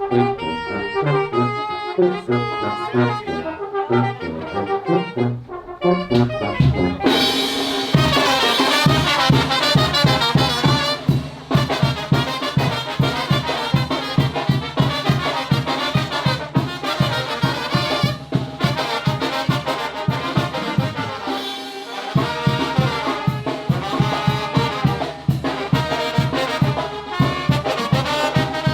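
Mexican banda, a brass band of trumpets and trombones over a steady bass beat, playing a jarabe. The full band comes in louder about a quarter of the way through.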